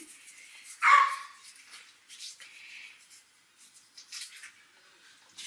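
Toothbrush scrubbing teeth in short, scratchy strokes. About a second in comes one short, sharp vocal sound.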